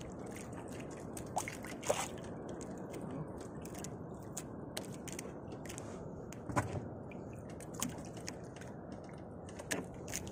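Steady wash of sea water around a small fishing boat, with scattered light clicks and a few louder knocks from a longline and gear being handled at the gunwale.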